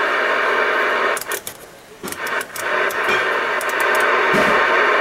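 Pearce Simpson Cheetah CB radio's speaker hissing with receiver static. The hiss cuts out for about a second, about a second in, with sharp crackles and clicks through the middle.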